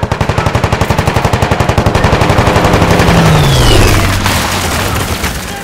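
Sustained rapid machine-gun fire, a fast even stream of shots that grows louder toward about four seconds in and eases near the end. A low tone slides downward beneath the gunfire around the middle.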